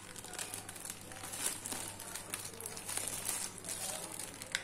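Tight clear plastic wrap crinkling and crackling as fingers pick at it and peel it off a small cardboard box, with a sharp snap near the end.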